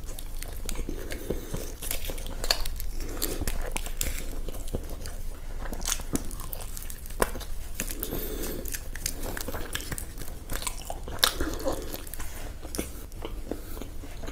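A person biting and chewing crunchy food, with wet mouth sounds and many sharp crunches scattered throughout; two louder crunches come about halfway and about three quarters of the way in.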